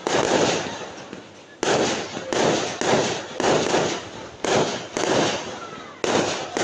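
Fireworks going off in quick succession: a sharp bang every half second to a second, each trailing off in a noisy tail before the next.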